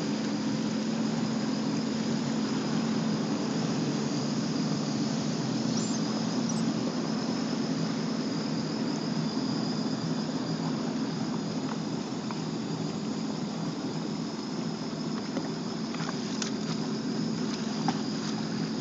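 RXT 255 personal watercraft's engine running steadily at low revs, around 1700 rpm, at slow cruising speed, with water rushing along the hull and a faint steady high whine above it.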